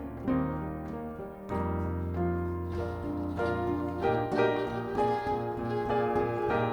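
Live jazz piano playing chords and moving lines over held low bass notes.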